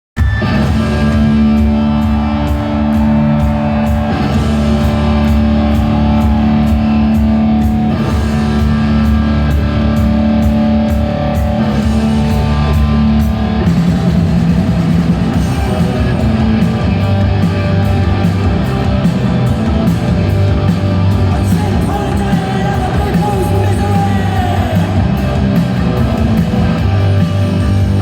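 Live punk rock band playing loud, with distorted electric guitars, bass, drums and a singer; the music cuts in abruptly at the start.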